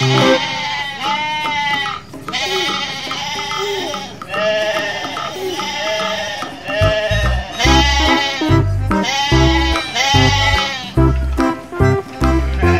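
Music with a heavy, regular bass beat, with repeated sheep-like bleats heard over it throughout.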